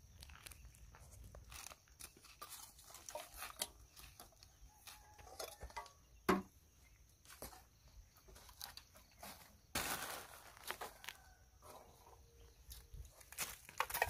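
Footsteps and a long stick crunching, scraping and rustling through dry plastic rubbish and debris: irregular faint clicks and crackles, a sharper knock about six seconds in, and a thicker burst of rustling about ten seconds in.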